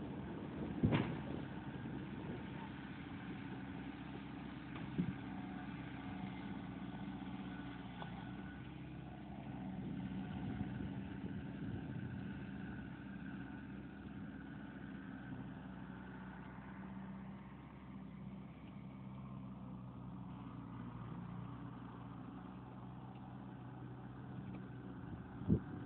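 An engine idling steadily, with a few short knocks, the sharpest about a second in.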